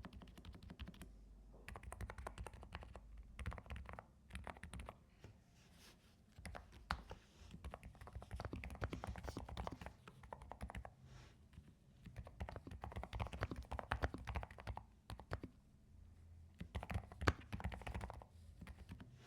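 Typing on a NuPhy Air75 V3 mechanical keyboard with Blush switches: rapid runs of key clacks in bursts, with short pauses between them.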